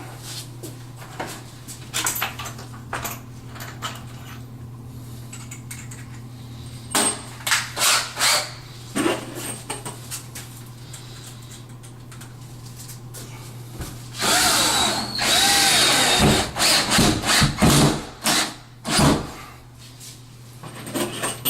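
Power drill driving cabinet screws: a few short bursts, then a longer run of about four seconds with the motor's pitch rising and falling, and one last short burst.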